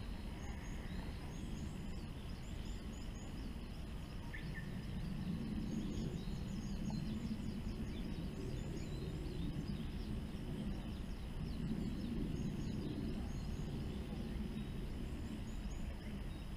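Outdoor ambience: a low rumbling noise that swells and eases, with many faint, high bird chirps scattered through it.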